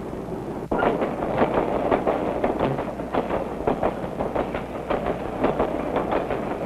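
Diesel-hauled freight train running along the track, its wheels clicking rapidly and irregularly over the rail joints above a low steady rumble. A quieter steady background cuts off abruptly just under a second in, when the train sound begins.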